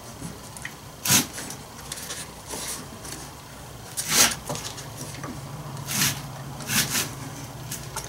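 Plastic air-filter parts of a concrete saw being handled and pressed into place: four or five separate sharp clicks and knocks, the loudest about a second in and about four seconds in.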